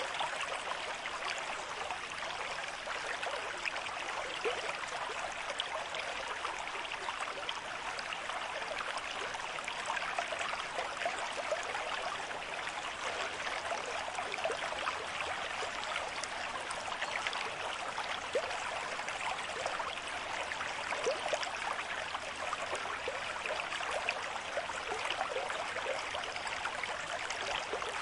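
River stream flowing at a moderate rate: a steady rush of water with many small gurgles and splashes.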